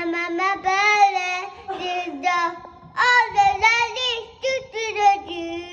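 A two-year-old boy singing an unrecognisable tune of his own, with long held notes broken by short pauses.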